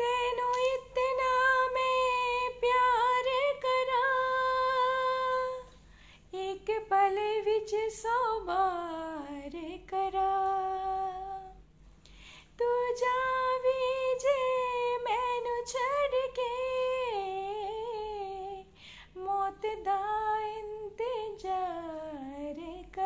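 A woman singing a song melody unaccompanied, in four phrases with held notes and sliding pitch, breaking briefly between them.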